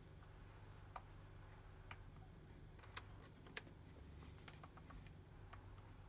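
Near silence with faint, sharp clicks about a second apart: the front buttons of an early Sony Discman being pressed. The player gives no response; it is dead.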